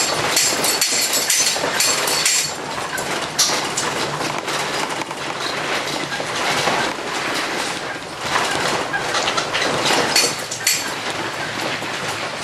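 Inside a tiny house being towed on a trailer: steady clattering and rattling of the structure and its loose contents over road rumble, with frequent knocks.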